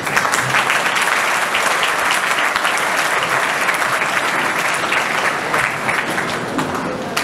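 Audience applause: a crowd of people clapping, starting sharply and thinning out near the end.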